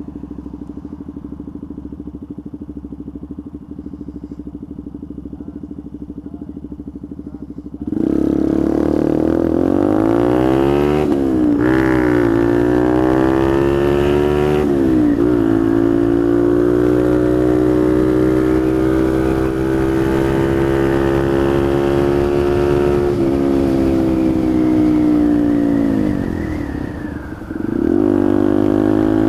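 Small motorcycle's engine idling steadily, then pulling away about eight seconds in, revving up and dropping back at each of a few quick gear changes. It then holds a steady cruising note, falls off as the bike slows near the end and picks up again just before the end.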